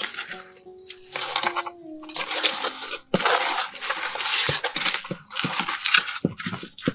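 Handfuls of wet coarse salt scrubbed over a slimy fish in a metal basin: gritty, irregular rasping and wet slapping, with the fish knocking against the basin, as the slime is stripped from its skin.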